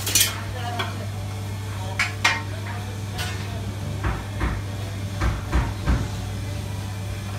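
Spirit level and tools being handled: a few sharp knocks and clatters as the level is picked up off the floor and set against the wall, then a run of duller thumps as it is held and marked. A steady low hum runs underneath.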